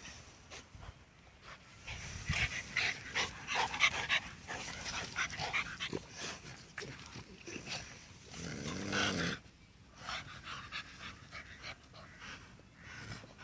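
A dog playing with a squeaky ball, panting and growling, with a busy run of short, sharp sounds for a few seconds and one longer pitched sound near the nine-second mark.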